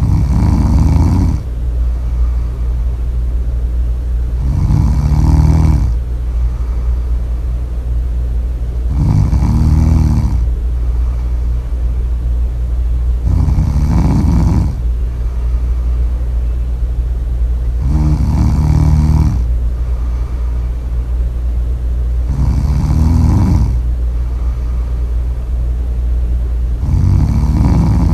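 Loud snoring: seven snores, evenly spaced about four and a half seconds apart, each lasting about a second and a half, over a steady low hum.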